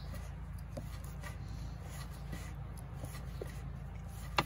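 Hands kneading soft pizza dough: faint rubbing and squishing with a few soft taps, and one sharp knock near the end, over a steady low background rumble.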